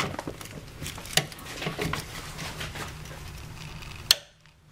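Ratchet with a 13 mm deep socket clicking and clinking on metal while loosening a brake master cylinder mounting bolt, with one sharp click about four seconds in.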